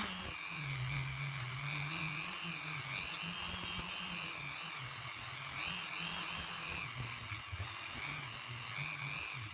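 Dremel rotary tool running at low speed with a hook-and-loop sanding pad, sanding the metal anvil of a vise. The motor whine wavers up and down in pitch as the pad bears on the metal and eases off, with a few faint scratchy clicks.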